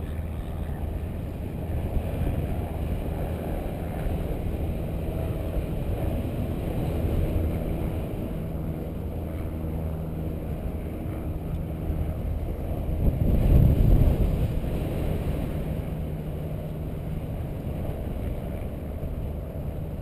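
Airflow rushing over the camera microphone of a paraglider in flight: a steady low rumble with a faint low hum underneath, swelling to a stronger gust about two-thirds of the way through.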